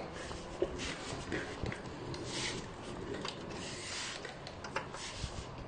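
Hands working among a photocopier's wiring harness and plastic cable clips: soft irregular rubbing and rustling of cables, with a few small clicks.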